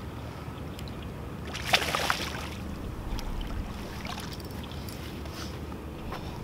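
A hooked bass thrashing and splashing at the water's surface as it is reeled in to the bank. The biggest splash comes about two seconds in, followed by a few smaller splashes.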